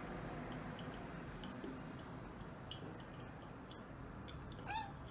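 Small plastic LEGO bricks being handled and pressed together: scattered faint sharp clicks, irregular, over low room noise.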